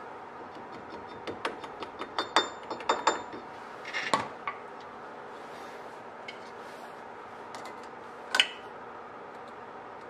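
Metal clicks and clinks of hand tools on a wheel hub's castle nut, retainer and cotter pin, in a quick run of taps between about one and four and a half seconds in, a few of them ringing briefly, and one more sharp clink about eight seconds in.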